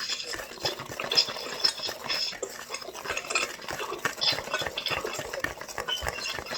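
Whisk or fork stirring flour and other dry biscuit ingredients in a mixing bowl, a continuous scraping with many quick clinks of the utensil against the bowl.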